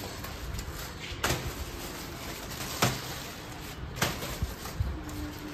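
Plastic courier mailer bags being picked up and dropped onto a stone floor: plastic rustling, with three sharp knocks and a couple of softer ones.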